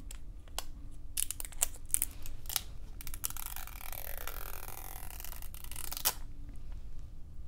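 Clear plastic wax strip from a Sally Hansen wax strip kit being handled with a few sharp crinkling clicks, then its two waxed layers peeled apart in one continuous tearing noise of about three seconds that stops suddenly.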